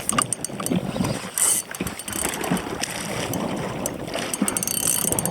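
Fishing reel being cranked to wind line back in against a heavy fish, giving an irregular run of mechanical clicks over water noise.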